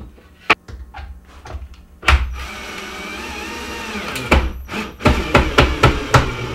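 Cordless drill/driver driving screws through a wooden board into a cabinet top. A few light clicks come first, then the motor whirs steadily for about two seconds and slows as the screw tightens, followed by a run of short rapid bursts.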